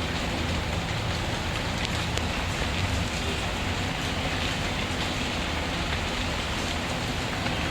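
Steady rainfall, an even hiss, with a wood fire giving a few faint crackles and pops over it.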